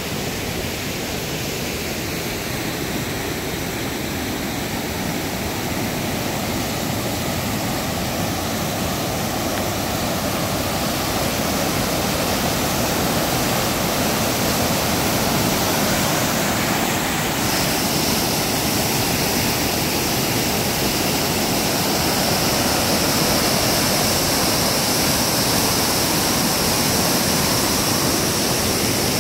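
Whitewater cascade rushing over rocks: a steady wash of falling water that grows gradually louder.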